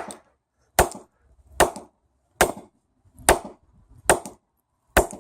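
Sledgehammer striking a small loudspeaker again and again: about seven sharp blows, evenly spaced a little under a second apart.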